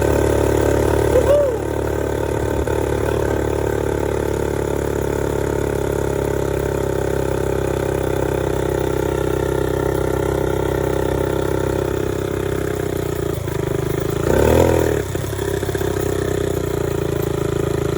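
1965 Honda S65's small single-cylinder four-stroke engine idling steadily, freshly restored and running, with a short throttle blip about a second in and another near the end.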